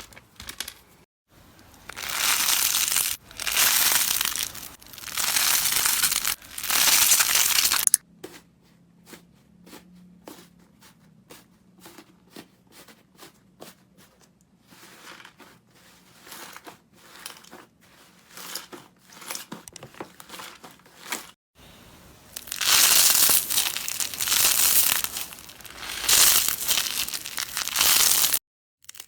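Crunchy slime being squeezed and pressed by hand, giving several loud crackling crunches of about a second each. In the middle the crunches give way to a quieter stretch of small scattered clicks and pops, then the loud crunching returns.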